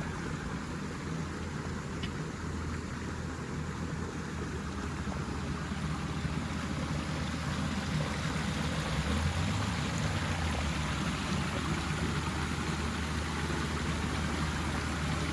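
Steady rushing noise of a tall waterfall plunging into its pool, with a low rumble underneath, slowly getting louder.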